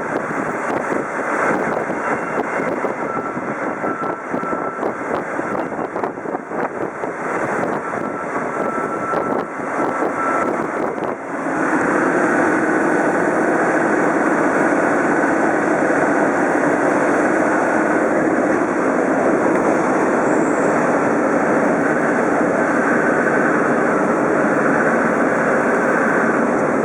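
Land Rover Defender driving, its engine and road noise making a steady drone. About eleven seconds in the sound grows louder and more even.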